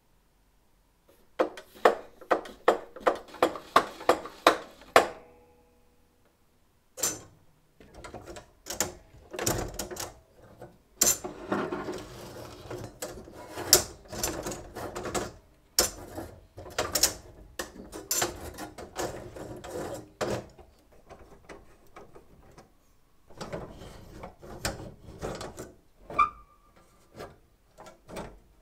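Metal parts of an antique mechanical horse racing game clicking: first about a dozen evenly spaced clicks, about three a second, then irregular clicks, knocks and rattles as its twisted metal track railings are handled and pulled loose, with a short metallic ring near the end.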